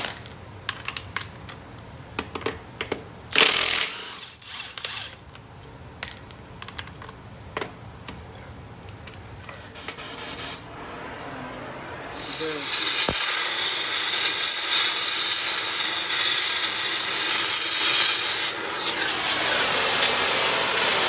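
An impact wrench fires in a few short bursts on swollen, stuck lug nuts. A little past halfway a cutting torch starts hissing loudly and steadily as it cuts out a rusted lug stud that spins behind the rotor mount and won't let the nut come off.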